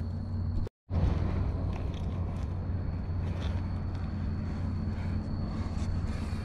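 Footsteps crunching through dry leaf litter on a forest slope, as faint scattered crackles over a steady low hum and a thin steady high tone. The sound cuts out to silence for a moment just under a second in.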